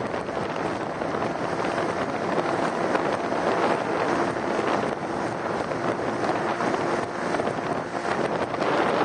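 Wind buffeting the microphone on a small motorboat under way, over the boat's steady running noise, with a faint steady engine hum in the middle.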